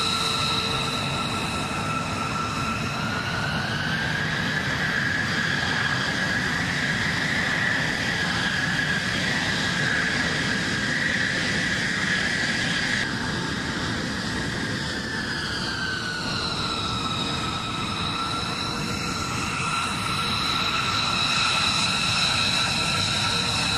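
B-2 Spirit bombers' turbofan jet engines whining steadily at taxi power. The whine rises in pitch a few seconds in and eases back down about two-thirds of the way through, over a steady rush of engine noise.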